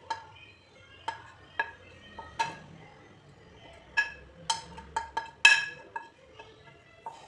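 A spoon clinking against a bowl while spices are added and stirred: about ten sharp, ringing taps at uneven intervals. The loudest comes about five and a half seconds in.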